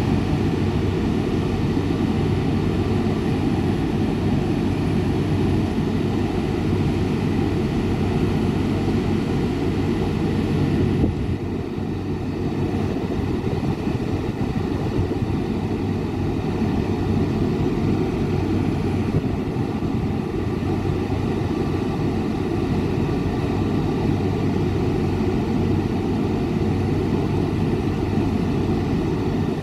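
SNCB class 27 electric locomotive standing at the platform with its cooling fans and blowers running: a steady, loud mechanical drone, slightly quieter from about eleven seconds in.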